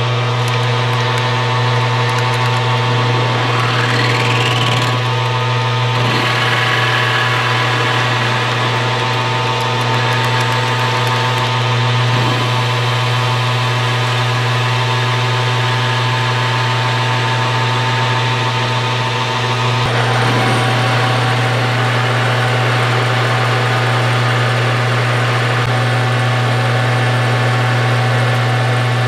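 Metal lathe running with a steady motor and gear hum, its carbide-insert tool turning down the end of a steel bar held in a three-jaw chuck to cut a small shoulder. The sound of the cut changes a little twice along the way.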